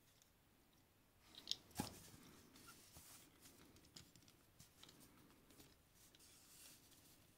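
Hard plastic toy robot figure being handled and adjusted: two sharp plastic clicks about a second and a half in, then quieter rubbing and light clicks as its parts are moved.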